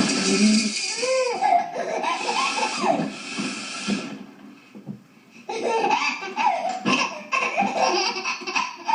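A woman blowing her nose loudly, twice: a long blow lasting the first four seconds, then another about five and a half seconds in. Each time a baby's voice rises and falls over it.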